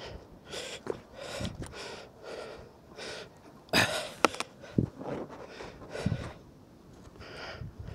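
A person breathing hard close to the microphone in quick, regular breaths, with a few sharp clicks and knocks about four seconds in.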